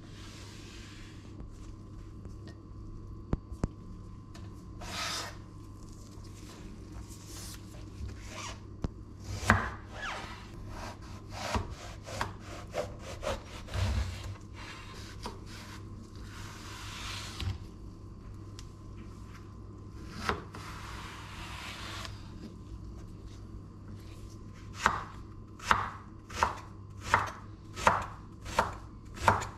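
Knife work on a wooden cutting board: scattered knocks and scraping while an eggplant is peeled, with a stretch of hiss partway through. Near the end, a steady run of knife chops through the peeled eggplant onto the board, about one and a half a second.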